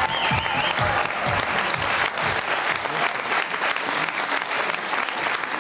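Studio audience applauding steadily. An entrance music jingle plays under the clapping for the first two seconds or so, then fades out.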